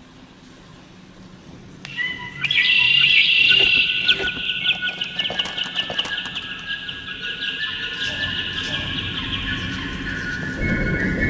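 High-pitched chirping, warbling tones come in about two seconds in and are loudest just after. The rapid warble then fades while steadier high tones carry on under it.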